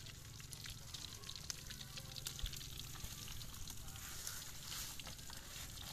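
Catfish frying in hot oil in a metal wok over a wood fire: a steady sizzling hiss with many small crackling pops.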